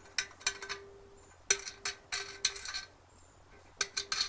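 Small metal wing nuts and washers clinking and tapping as they are unscrewed from the studs on top of a patio heater head, in scattered clicks with one sharper clink about a third of the way in, over a faint steady hum.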